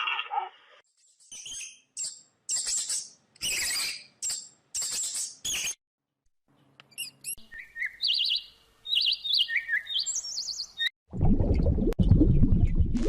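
Clips of bird calls spliced one after another: a run of sharp, evenly spaced chirps, then a series of short high falling whistled notes. About eleven seconds in, a loud low rumbling noise takes over.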